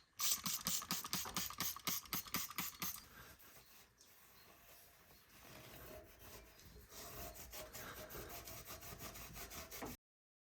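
Brake making a rapid, rhythmic scraping pulse of several strokes a second, the gobbling sound likened to a turkey. It is loud for about three seconds, eases off, picks up again more weakly and cuts off suddenly near the end.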